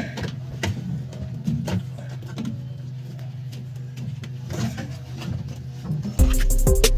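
A steady low hum with scattered clicks and knocks of parts being handled, then background music with a steady beat comes in suddenly about six seconds in.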